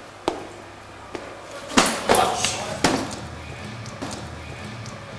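A plastic-wrapped meat tray dropping onto a tiled toilet floor: a short, noisy crash of a few slaps and crinkling, with a sharp click a moment before.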